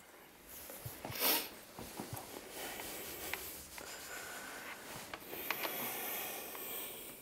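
Quiet small-room tone with scattered faint clicks and rustles as a seated player settles with an acoustic guitar. A short, sharp sniff about a second in is the loudest sound.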